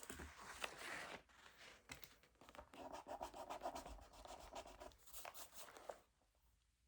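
Quiet scratching of a pen or pencil writing on paper, in a run of short strokes that stops about six seconds in.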